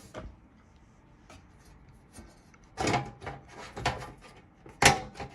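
Side panel of an HP Victus 15L desktop PC case being fitted and pushed back on: a few scrapes and knocks starting about three seconds in, the sharpest knock near the end.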